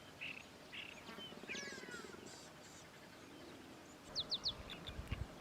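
Faint calls of wild birds: a few sliding chirps about one and a half seconds in, then a quick run of three high chirps just after four seconds.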